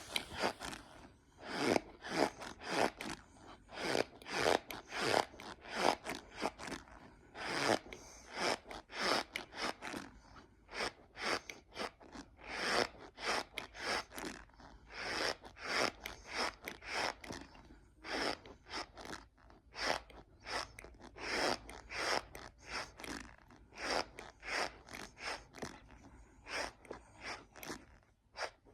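Close-up chewing of compressed cornstarch: a steady run of squeaky, crunchy bites, about two a second.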